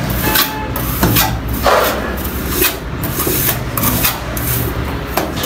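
Steel plastering trowel scraping cement mortar along the edge of a concrete beam, against an aluminium straight edge, in a series of short strokes over a low steady hum.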